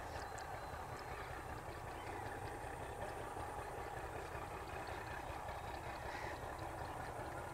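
Outdoor rural ambience: a steady low background hum and rumble with faint, scattered bird chirps.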